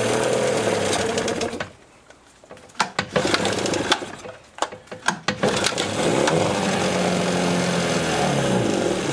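Suzuki 9.9 hp two-stroke outboard running in a test tank, then dying about a second and a half in. It sputters and catches again a few seconds later, runs steadily, and fades out right at the end. The mechanic puts the stalling down to the fuel-line connector sucking air.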